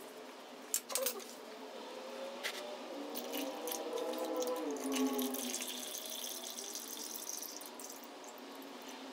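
Engine oil pouring and splashing, with a pitch that rises and falls as the liquid runs, after two sharp metallic clinks about a second in.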